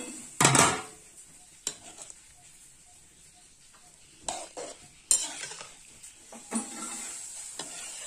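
A spatula stirring and scraping a simmering curry in an iron wok, with about six scrapes and clanks against the pan; the loudest comes about half a second in. A faint sizzle runs between the strokes.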